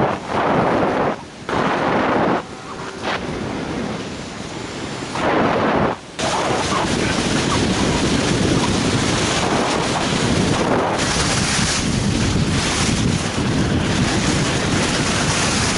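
Fast skiing: skis hissing over slushy spring snow with wind buffeting the microphone. A few short swooshes come in the first seconds, then a steady, loud rush from about six seconds in.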